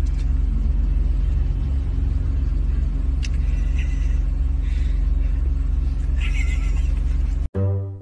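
Steady low rumble of a car's engine and road noise heard inside the cabin, with a few brief faint higher sounds. It cuts off sharply near the end, replaced by plucked cello music.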